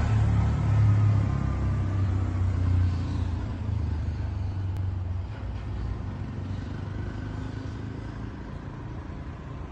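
Low engine rumble of a motor vehicle on a town street, loudest in the first three seconds and then fading away, over steady street noise.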